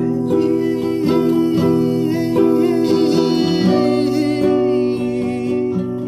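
Acoustic guitar strummed in a steady rhythm, with a voice humming a wordless melody over it.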